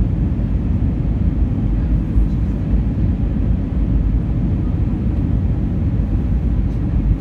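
Airbus A321 cabin noise on the descent to landing: a steady low rumble of engines and rushing air, heard from inside the cabin.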